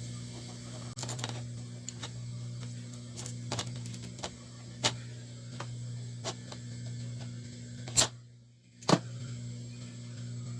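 Scattered small clicks and taps from hands working with wire and tools on an electronics workbench, over a steady low hum. Near the end the sound drops out briefly between two sharp clicks.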